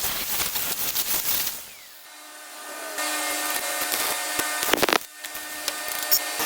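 Metalworking machine tool running with a steady hum under harsh scraping cutting noise. The cutting noise drops away about 2 s in, comes back about a second later, and has a brief loud burst near 5 s.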